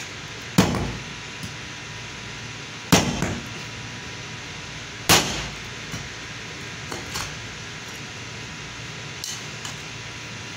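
Heavy meat cleaver chopping through raw beef trotters on a wooden cutting board: three hard blows about two seconds apart, each with a short ring, then a few lighter knocks.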